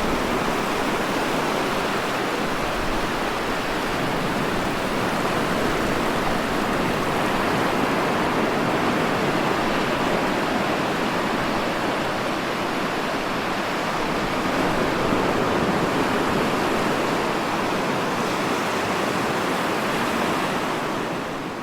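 Steady, even rush of water, fading out near the end.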